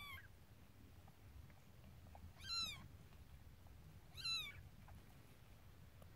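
Newborn kitten mewing: three short, high-pitched mews, each rising and then falling in pitch, the last two about two seconds apart.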